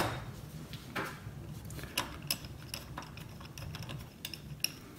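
Scattered light clicks and taps of small metal parts as bolts are started by hand into the end cap of a trolling motor's housing. There is a sharp click at the start, then a few softer ones about a second apart.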